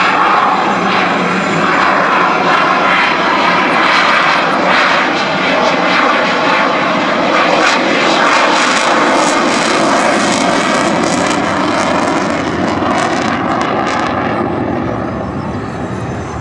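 A Saab JAS 39 Gripen fighter's single Volvo RM12 turbofan on a display pass. It is a loud, steady jet roar that eases slightly near the end as the aircraft banks away.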